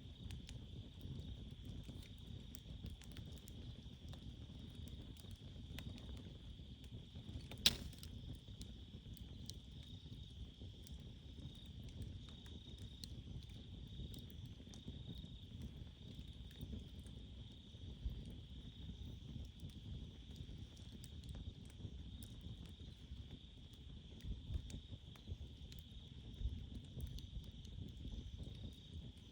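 Small wood campfire crackling, with scattered pops and one sharp pop about eight seconds in, over the steady high chirring of crickets.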